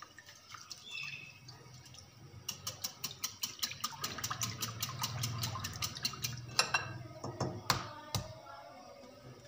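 Stainless-steel balloon whisk beating eggs into milk in a glass bowl: the wires tick against the glass about eight times a second over the slosh of the liquid. A few sharper knocks follow near the end.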